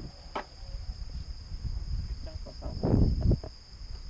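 Steady high-pitched insect chirring from the grass, under low wind buffeting on the microphone that surges loudest about three seconds in.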